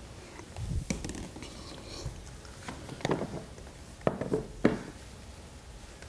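Handling noise as small plastic hose parts are picked up and moved about: scattered light knocks and clatter, with a cluster of sharper knocks about four seconds in.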